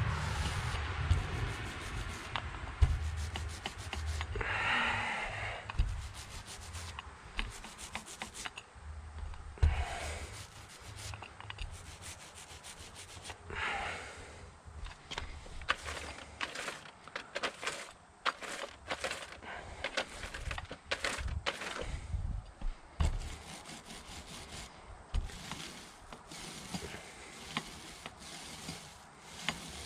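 Paint roller with a 15 mm-nap sleeve rolling paint over a garage door: a soft rubbing in repeated strokes that swell and fade, with occasional sharper clicks and knocks.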